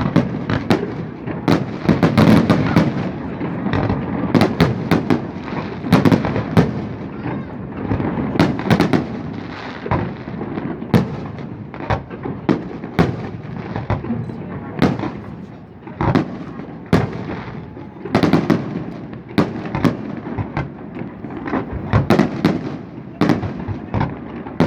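Fireworks display: aerial shells bursting in a rapid, irregular series of sharp bangs and crackles over a continuous rumble.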